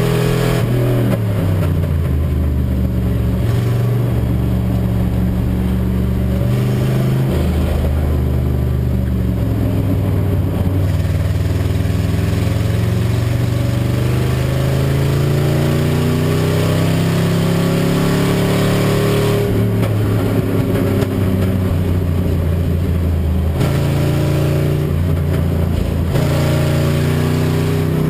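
A race car's engine heard from inside the cockpit while lapping, its revs falling and rising with gear changes. The pitch drops in the first second, climbs slowly for several seconds through the middle, then falls sharply about two-thirds of the way in as the gear changes. The team describes the engine as running on six and a half cylinders, meaning it is misfiring.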